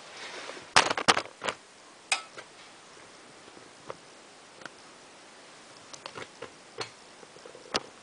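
Hotpoint Ultima WT960 washing machine clicking as its fast-spin programme starts: a cluster of sharp clicks about a second in, one more shortly after, then scattered faint ticks.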